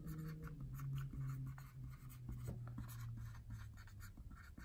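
Staedtler whiteboard marker writing on a small whiteboard: a run of short scratchy pen strokes as words are written. A faint, steady low hum runs underneath and stops near the end.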